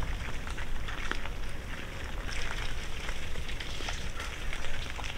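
A group of feral hogs feeding on shelled corn: a dense crackle of many small clicks from crunching and rooting, over a low rumble.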